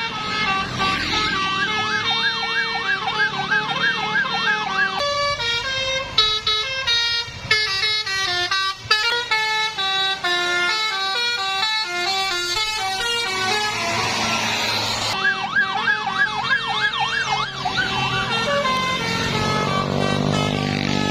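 Basuri multi-tone 'telolet' bus horn playing quick melodies of stepped notes, broken by two stretches of a fast warbling siren-like tone, near the start and again about two-thirds in. A brief hissing rush comes just before the second warble.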